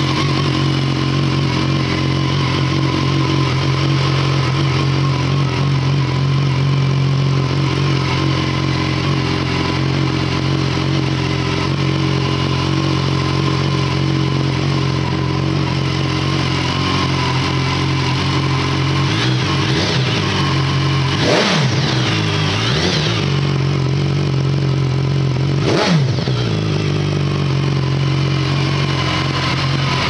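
Stock BMW S 1000 XR's inline-four engine idling steadily through its standard exhaust. About two-thirds of the way through, a few short throttle blips rise and fall back to idle, and the engine then idles on.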